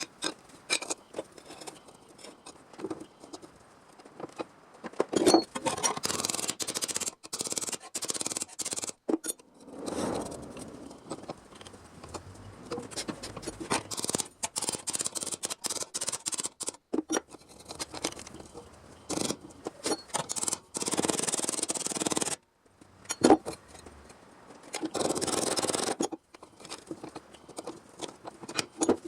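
Hand metalwork on a sheet-steel body panel: repeated scraping and rubbing strokes in bursts of a few seconds, with short pauses between.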